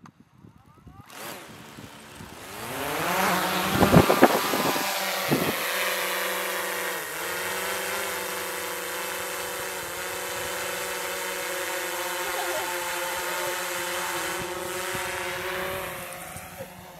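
DJI Mavic quadcopter's motors and propellers spinning up with a rising whine about a second in, with a couple of loud thumps as it lifts off. It then settles into a steady, many-toned buzz while it hovers, and the buzz fades near the end.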